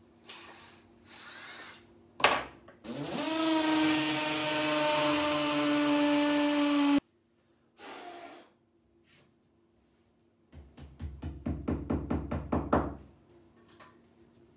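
Cordless drill spinning up and running steadily for about four seconds, then cutting off abruptly. A few seconds later it runs again as a quick, even series of sharp clicks while a screw is driven into a towel-rail bracket.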